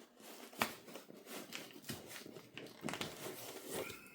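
Faint crinkling of plastic packaging with scattered light clicks and taps as small parts are handled and unwrapped.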